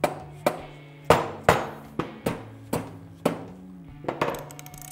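Dead blow mallet tapping a motorcycle's aluminium crankcase about ten times, roughly two a second, each a sharp knock with a short ring: light taps to break the case halves apart evenly while a case splitter pushes them.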